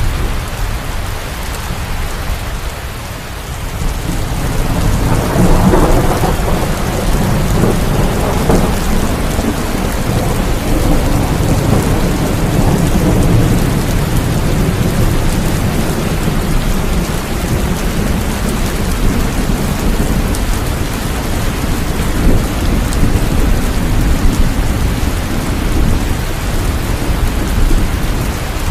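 Steady heavy rain with rolling thunder; a rumble of thunder swells about five seconds in and dies away slowly over several seconds.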